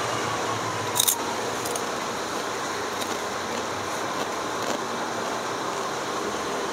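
A crisp rice cracker being bitten, a sharp double crunch about a second in followed by a few fainter crunches as it is chewed, over a steady background hum of traffic and fans.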